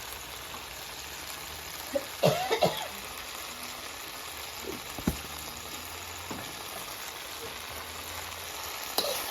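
Okra frying in a pan, a steady sizzle, with a single sharp knock about five seconds in.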